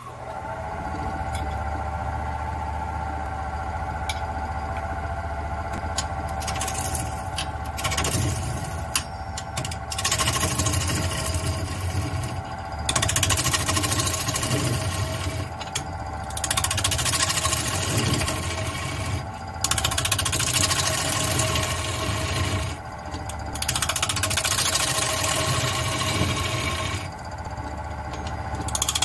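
Wood lathe motor spinning up and then running with a steady whine, while a bowl gouge cuts into a black walnut blank in repeated passes of a few seconds each: a loud rough scraping hiss that starts and stops over the motor.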